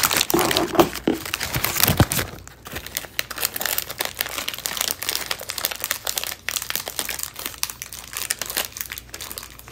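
Wrappers of small chocolates crinkling as they are pulled open by hand, loudest in the first two seconds and then lighter crackling.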